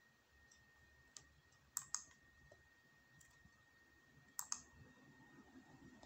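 Sharp clicks from handling a tablet with a keyboard case: a light click, then two quick pairs of clicks about two and a half seconds apart, over a faint steady high whine.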